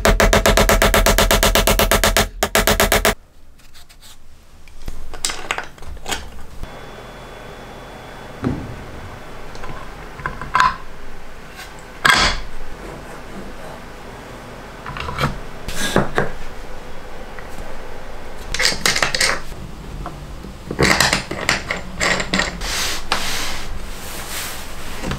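A loud power tool runs with a fast, even pulsing beat and stops abruptly about three seconds in. Then comes a string of separate knocks, clicks and scrapes of wood and hardware being handled on a workbench.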